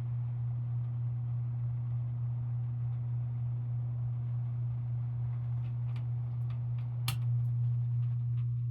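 Hampton Bay Littleton 42-inch ceiling fan running with a steady low hum, and a few sharp clicks in the second half, the loudest about seven seconds in.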